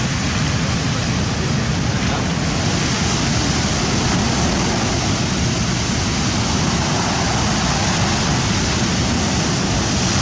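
Rough-sea surf washing steadily, with wind rumbling on the microphone.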